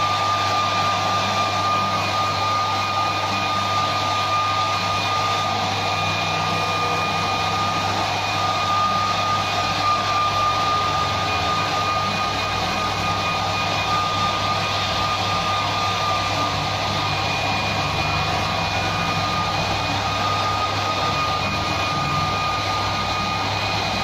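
Small handheld hair dryer running steadily on a wet dog's coat: a continuous rush of air with a steady high motor whine.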